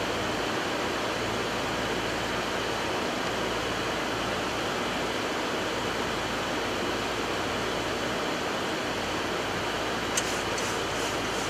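Steady rushing flight-deck noise of a Boeing 737 MAX 8 in flight on approach, with landing gear down and flaps at 15. A few faint clicks near the end.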